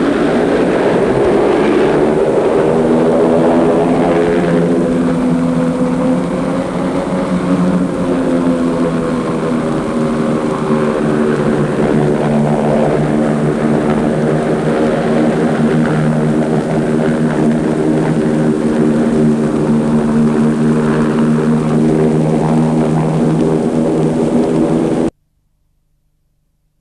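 Hovercraft (air cushion vehicle) engine and propeller running in a steady, loud drone, the pitch shifting over the first few seconds and then holding steady. The sound cuts off abruptly near the end.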